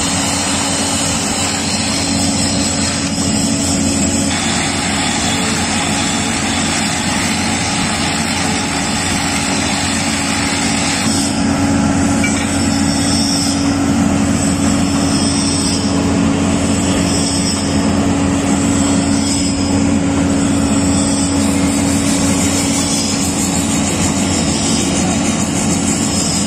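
A motor runs steadily with a constant hum, growing slightly louder about eleven seconds in.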